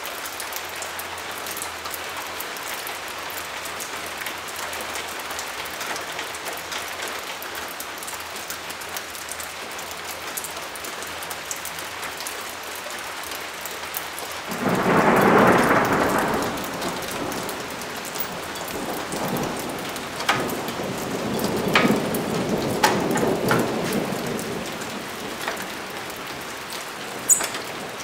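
Steady rain falling, with a roll of thunder about halfway through that swells for a couple of seconds, then rumbles on more softly. A few sharp clicks come near the end.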